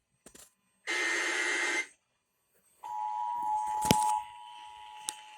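An Emergency Alert System SAME header burst, a one-second screech of digital data tones, then after a second's pause the steady two-tone EAS attention signal begins, over radio hiss with a few sharp static clicks. The attention tone drops in level about a second after it starts. This is the opening of a new weather warning.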